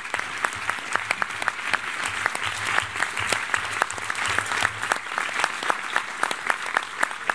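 Audience of delegates applauding in a conference hall: steady clapping from many hands with sharp individual claps standing out.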